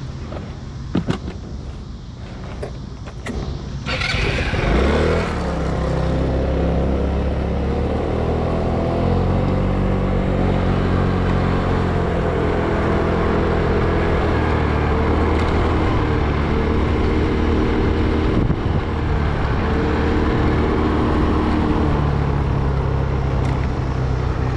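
A few sharp clicks and knocks, then about four seconds in a car engine starts and runs steadily, its pitch shifting slowly as the vehicle drives off.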